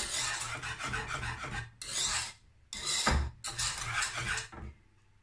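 Wire whisk scraping around a non-stick saucepan as it stirs thick matcha custard sauce, in several strokes with short pauses between them. There is a dull knock about three seconds in, and the whisking stops near the end.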